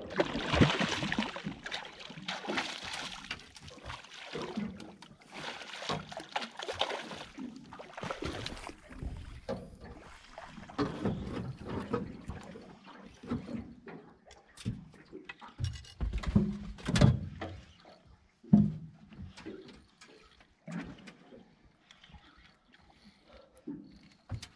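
Water splashing and trickling beside a small boat as a hooked fish is brought to the surface. Several sharp knocks on the boat come later on.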